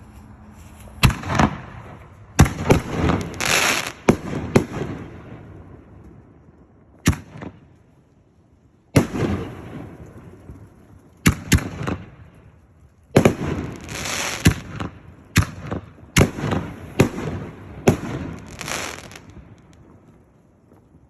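5-inch canister firework shells launching and bursting: a series of loud, sharp bangs in clusters, several followed by a fading hiss.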